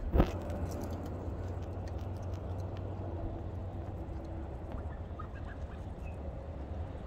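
Domestic goose feeding on a piece of lettuce on brick pavers: one sharp tap about a quarter second in, then faint scattered bill taps over a steady low background rumble.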